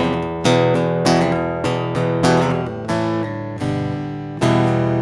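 Acoustic guitar strumming chords in the song's closing bars, with a final chord struck near the end and left to ring out.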